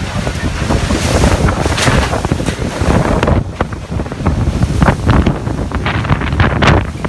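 Hurricane-force wind blowing hard and buffeting the microphone in a constant heavy rumble, with many short sharp hisses and clatters riding on the gusts, thickest near the end.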